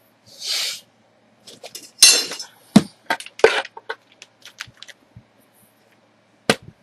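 Small metal parts being handled on a tabletop: a short rush of noise, then a run of clinks, knocks and scrapes, and one sharp knock near the end.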